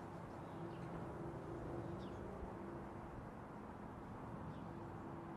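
Faint outdoor ambience: a low steady rumble with a few short bird chirps.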